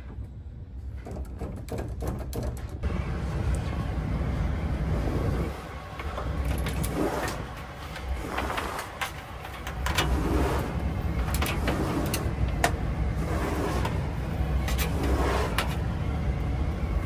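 Handling noise from a fish stick and network cables being worked through a gap in a basement wall: irregular rustling, scraping and sharp clicks over a steady low rumble.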